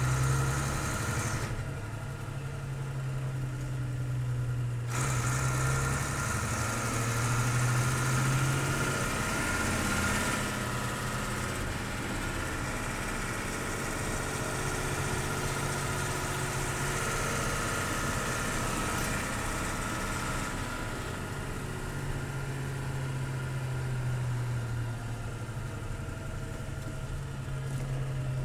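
Diesel engine of a 1984 Bedford truck running steadily, heard from inside the cab, with a constant low engine note throughout.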